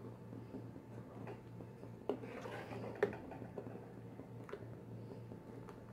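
Wooden spatula stirring milk in a steel pan: soft scraping and light taps on the pan, with two sharper knocks about two and three seconds in, over a low steady hum.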